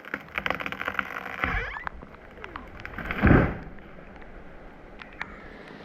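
A felled tree coming down: a rapid run of cracking and snapping branches for about two seconds, then a single heavy thud a little over three seconds in as the trunk hits the ground. Steady rain follows.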